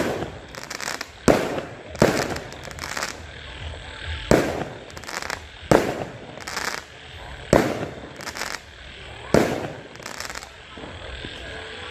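Fireworks going off: about seven sharp bangs spaced one to two seconds apart, each trailing into crackling.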